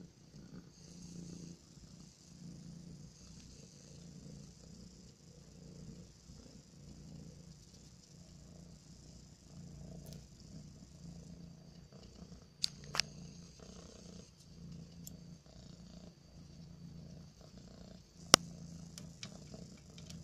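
Siberian kitten purring steadily, the purr swelling and fading about once a second. A few sharp clicks come about two-thirds of the way in, and a louder one near the end.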